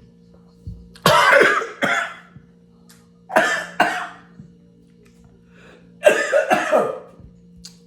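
A person coughing hard in three fits of two or three coughs each, choking on food that went down the wrong pipe.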